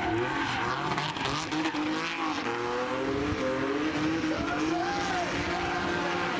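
A car doing smoky donuts: its engine is held at high revs, the note wavering up and down, while the spinning tyres squeal on the tarmac.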